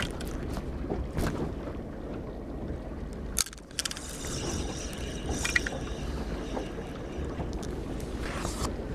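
Small boat's outboard motor running low at trolling speed, with wind on the microphone. A short burst of clicks comes about three and a half seconds in.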